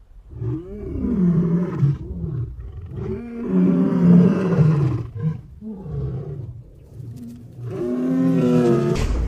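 AI-generated lion roars: deep, drawn-out roars in about four long bouts, the third one fainter.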